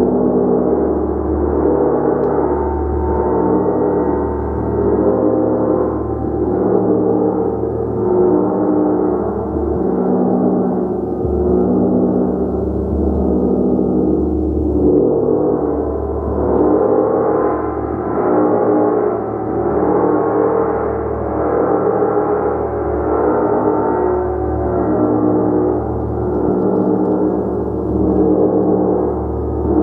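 A large gong played continuously with soft repeated strokes, building a dense, sustained wash of overlapping shimmering tones. The low hum swells about every two seconds as each new stroke lands.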